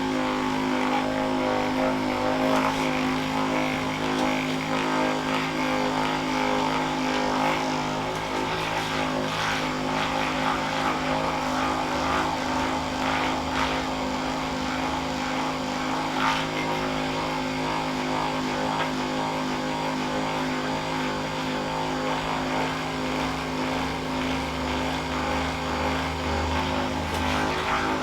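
Handheld percussion massager running steadily while pressed into the muscles, an even motor hum held at one pitch.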